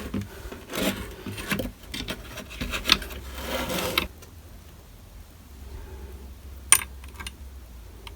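Hands handling and fitting small plastic parts of a car hatch release button assembly: rubbing and scraping with several clicks for about four seconds, then quieter, with one sharp click near seven seconds.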